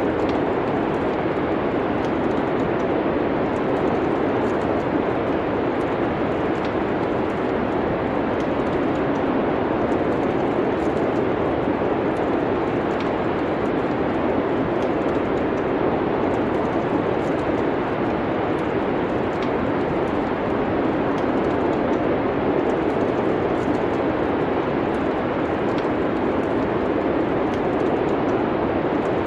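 Steady wind noise of a winter storm, with faint, scattered crackles of a wood fire.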